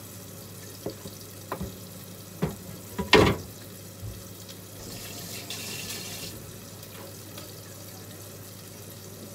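Clinks and knocks of a glass mixing bowl and kitchen utensils being handled, a few separate strikes with the loudest about three seconds in. A brief soft hiss follows around the middle.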